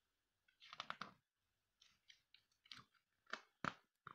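Pages of a picture book being handled and turned: a series of short, soft rustles and taps.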